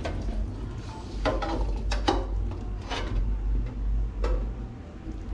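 A stainless steel bowl in a sink knocking and scraping as a marinated rack of pork ribs is handled and lifted from it onto a wooden cutting board: about five sharp clinks and knocks over a steady low hum.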